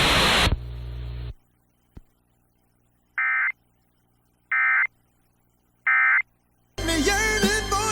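Hiss from the alert broadcast cuts off, then three short buzzy data bursts sound about a second and a half apart. These are the Emergency Alert System end-of-message (NNNN) code that closes a warning. Wavering music starts near the end.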